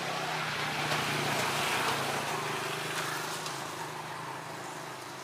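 A passing vehicle: a broad rushing noise that swells to a peak about two seconds in and then fades, over a steady low hum.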